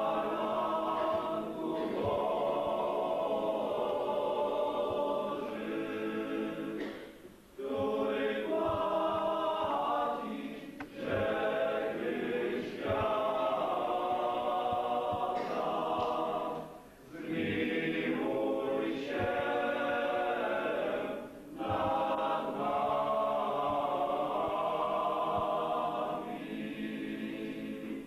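A choir singing a church hymn, phrase by phrase, with short breaks between the lines.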